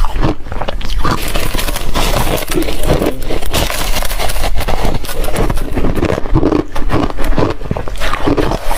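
Ice being chewed, a dense, continuous run of loud crunches and cracks.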